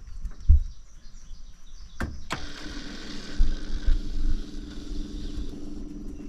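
Two sharp clicks about two seconds in, then a steady electric hum starts up: the Ventrac 4520Z tractor's ignition and electrics switched on without the engine running.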